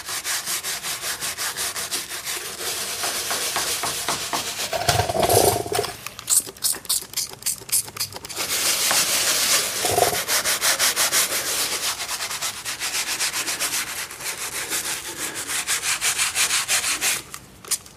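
Bristle brush scrubbing faded, hazed black plastic bumper trim with a heavy-duty vinyl cleaner, rapid back-and-forth strokes to lift dirt and white residue from the plastic. The scrubbing eases off briefly about six seconds in and again near the end.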